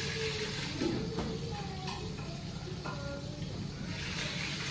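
Steady sizzling of food frying in a pan, with faint voices from a TV programme over a low hum.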